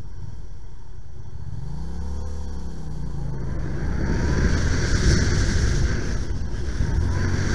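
Motorcycle engine running; its pitch rises and falls once about two seconds in. Wind noise on the helmet camera then builds as the bike gets moving.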